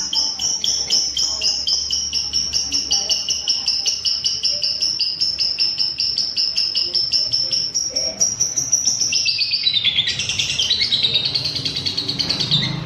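Lovebird's long unbroken chattering trill (ngekek): a fast run of high, evenly repeated notes. The pitch drops lower about ten seconds in and then climbs back up.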